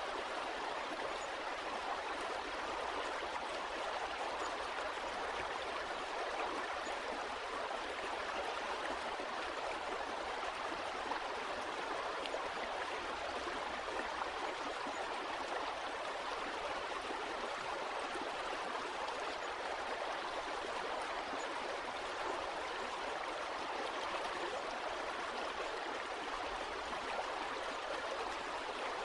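Flowing stream water, a steady rushing and gurgling that holds the same level throughout.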